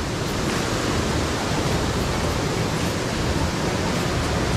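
Steady rush of a mountain stream's cascading water, an even hiss with no let-up.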